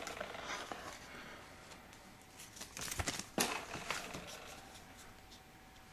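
Rustling and crinkling of a product box's packaging and paper being handled, with scattered small clicks and taps, busiest around three seconds in.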